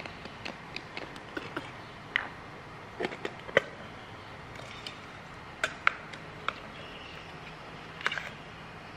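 Scattered short clicks and light knocks of a plastic baby bottle, its teat cap, a scoop and a milk-powder tin being handled on a wooden table, the sharpest about three and a half seconds in.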